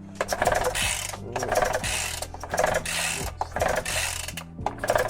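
Recoil pull-starter of an Atlas Copco Cobra two-stroke petrol breaker yanked about once a second, five times, each pull a short whirring rasp as the engine turns over without firing. It is being cranked for a compression test, which reads 75 PSI, low enough that the mechanic suspects a problem in the cylinder. Lo-fi background music plays underneath.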